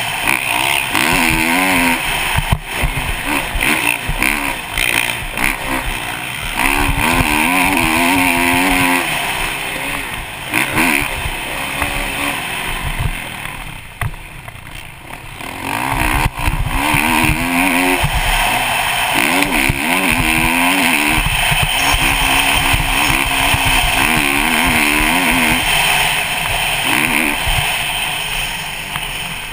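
Kawasaki KX450 single-cylinder four-stroke motocross bike ridden hard, the engine revving up and dropping back again and again as it is shifted through the gears, with a brief throttle-off lull about halfway through. A steady rushing noise of wind runs underneath.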